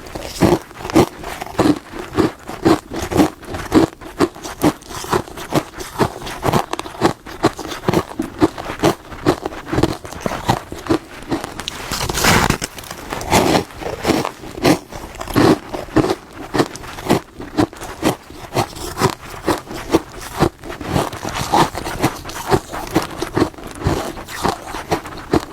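Close-miked biting and chewing of hard, crunchy frost grown in a fridge. Crisp crunches and crackles come about twice a second, with a longer, louder crunch about twelve seconds in.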